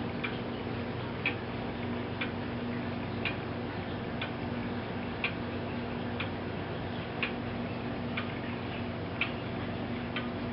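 Eighteenth-century tall case clock's eight-day weight-driven movement ticking, about one tick a second, evenly spaced.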